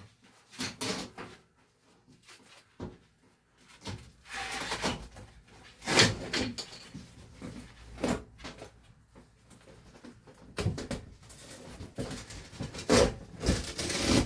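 Irregular knocks, scrapes and rustles of hand work on old HVAC return ductwork and its fittings, with louder clunks about six seconds in and again near the end.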